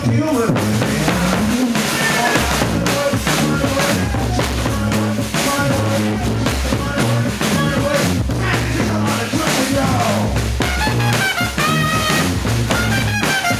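Brass band playing live: a drum beat under a steady repeating low bass line, with horn lines coming through more strongly near the end.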